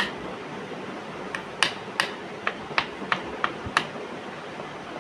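A run of sharp, short clicks, irregularly spaced, about eight of them packed between one and four seconds in, over a steady low background noise.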